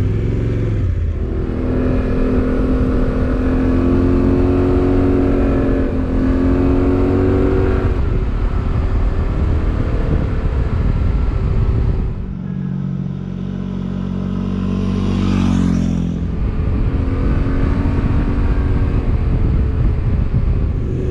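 Motorcycle engine heard from the rider's seat with heavy wind rush. The engine note climbs as the bike accelerates, dips about twelve seconds in, then rises again.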